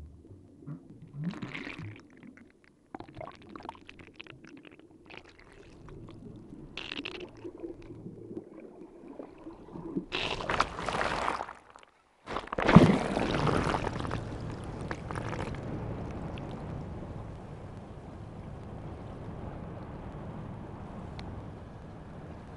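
Underwater sound picked up by a suction-cup DTAG on a humpback whale: gurgling, rushing water noise with scattered crackles. It cuts out briefly around the middle, comes back with a sudden loud rush of water, and settles into a steady hiss.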